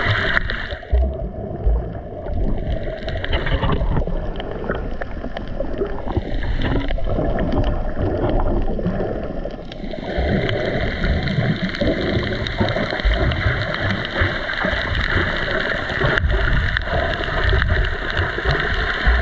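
Muffled underwater sound picked up by a submerged GoPro Hero 9 action camera: water gurgling and sloshing around the housing, with a steady drone underneath. It turns duller from about a second in and brightens again about ten seconds in.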